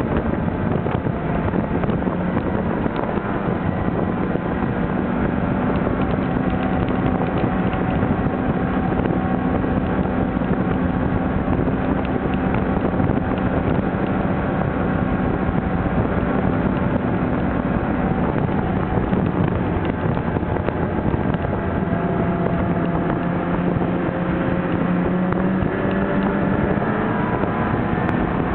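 Snowmobile engine running steadily under way, with wind buffeting the microphone; its pitch dips about twenty seconds in, then climbs toward the end.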